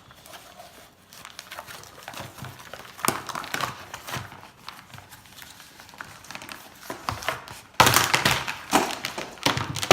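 Packaging of a jump rope being handled and pulled open: crinkling and rustling with scattered knocks. A louder burst of rustling comes about eight seconds in, and another short one near the end.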